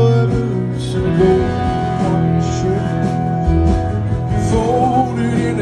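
Live country band playing through a concert PA: acoustic and electric guitars, drums and held chords, loud and steady.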